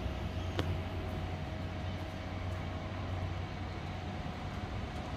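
Steady low rumble of a distant vehicle engine, with a faint constant hum over it and a single click about half a second in.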